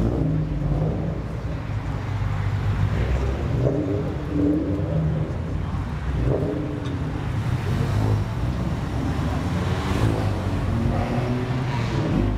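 Car engine running with a steady low rumble, with indistinct voices of people in the background.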